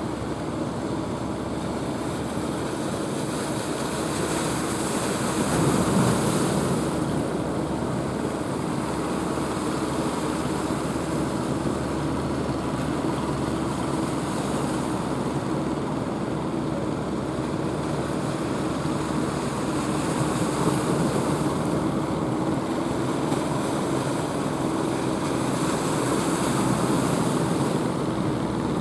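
Ocean surf: waves rushing and breaking in a steady wash, swelling louder every several seconds, most strongly about six seconds in. A faint steady low hum runs underneath.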